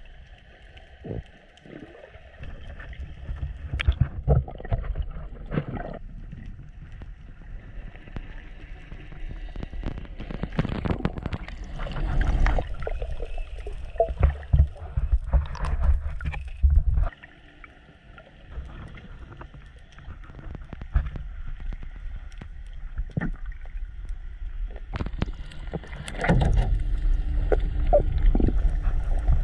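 Underwater audio from a camera carried by a diving snorkeller: a muffled rumble and rush of moving water with scattered sharp clicks and bubbling. It drops quieter a little past halfway and comes back louder near the end.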